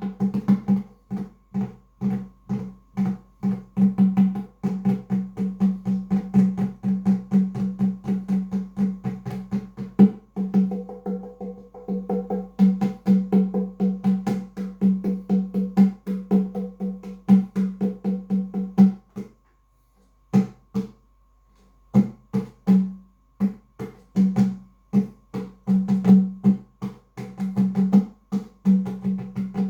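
Nyabinghi drumming: a steady run of pitched drum strikes over a ringing low tone, with a brief pause about two-thirds of the way through before the strikes resume.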